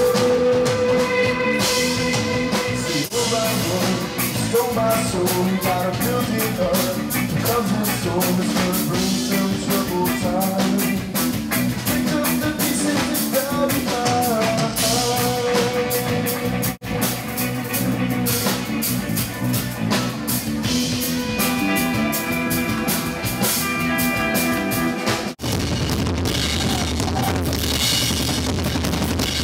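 Live rock band playing loudly, led by a drum kit keeping a steady beat with guitar. The music drops out for an instant about two-thirds of the way through, then changes near the end to a denser, crashing wash of drums and cymbals.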